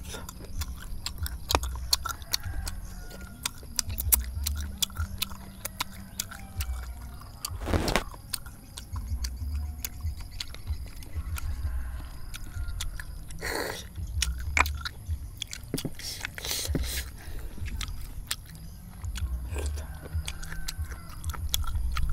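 Close-up eating of spicy fried snails: steady chewing with sharp clicks of shells and a small metal pin, and about three louder sucking noises as snail meat is drawn from the shells.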